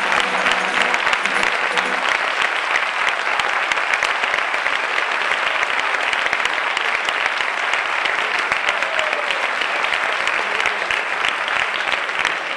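An audience applauding steadily, a dense clapping that holds its level throughout.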